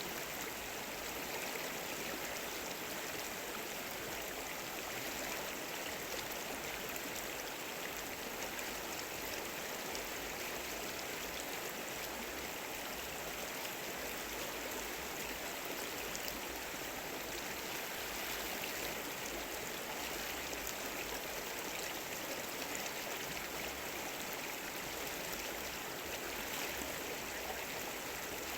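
Water of a shallow stream flowing, a steady even rush with no breaks.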